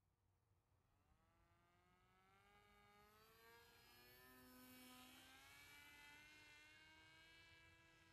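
Faint whine of the ZOHD Dart XL Extreme's electric pusher motor and propeller as the flying wing makes a low pass, loudest about five seconds in.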